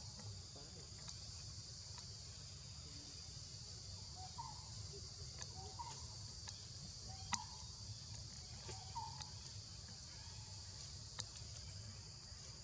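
Steady high insect chorus over a low rumble, with a few short soft chirps and two sharp clicks, one about seven seconds in and one about eleven.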